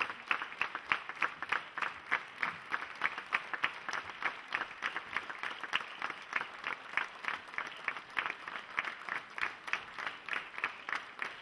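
Theatre audience applauding at a curtain call, clapping together in a steady rhythm of about four claps a second.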